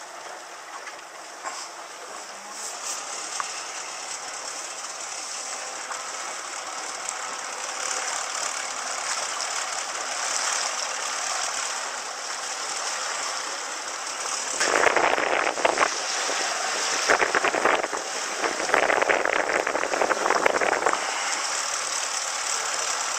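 Small motorboat under way: a steady rush of water and motor noise that grows gradually louder. About two-thirds of the way in come three spells of loud splashing as the hull meets small waves.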